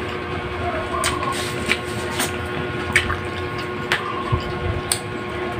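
Eating sounds from people eating rice and pork chop with their hands: sharp wet mouth clicks and smacks about once a second while chewing, over a steady rushing background noise with a faint hum.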